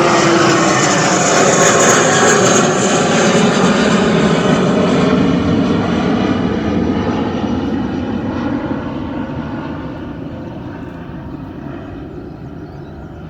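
Airliner taking off and passing close by. The engine noise falls in pitch as it goes past, then fades steadily away as the aircraft climbs out.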